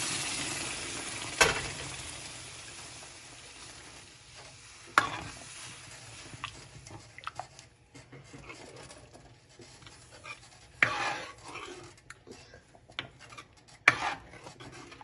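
Boiled chana dal poured into hot oil tempering in a steel pan, sizzling loudly at first and dying away over the first few seconds. A metal spoon then stirs and scrapes through the dal, with a few sharp clanks against the pan.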